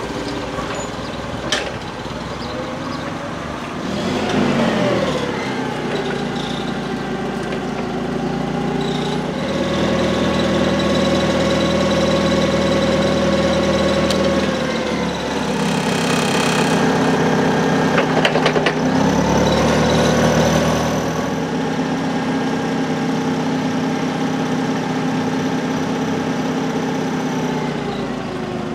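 Propane-fuelled Clark forklift engine running, revving up and holding at higher speed for several seconds twice, then settling back to a lower speed.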